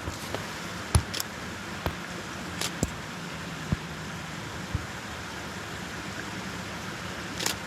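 Steady rush of a creek running full after heavy rain. Footsteps on the trail sound over it, about one a second.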